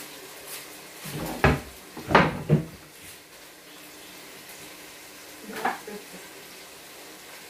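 Kitchen wall cupboard being opened and rummaged in: a few knocks and bangs from its door and contents, the loudest about two seconds in, and one more later on.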